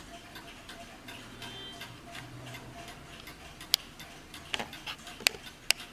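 Warmink mantel clock ticking steadily, about three ticks a second. A few louder, sharper clicks stand out in the second half.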